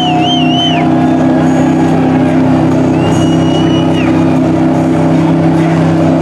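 Mud buggy's engine held at steady high revs as it churns through a deep mud hole. A high warbling whistle sounds over it near the start and again about three seconds in.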